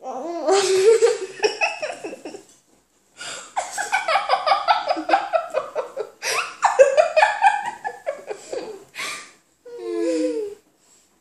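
Two children laughing hard, one with his mouth stuffed with marshmallows. The laughter comes in two long fits with a brief break about three seconds in, and ends with a short wavering sound.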